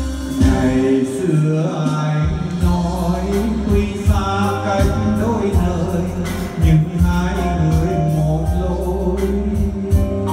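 A male voice singing a ballad over a band accompaniment with a steady bass line and beat.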